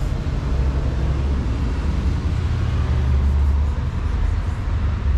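Steady low rumble of outdoor background noise, heaviest in the bass, swelling slightly about three seconds in.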